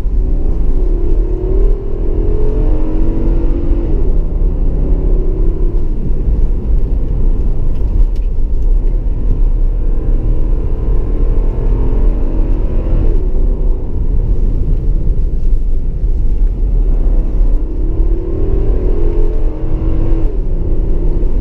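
The 5.6-litre VK56VD V8 of a 2015 Infiniti QX80, heard from inside the cabin, pulling hard through the gears. Its pitch rises under acceleration three times, near the start, about halfway and near the end, over a steady low rumble.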